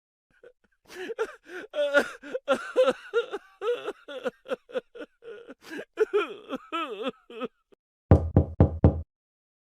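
A rapid run of short, pitch-bending, voice-like sound effects lasting several seconds, followed near the end by four loud, deep knocks in quick succession.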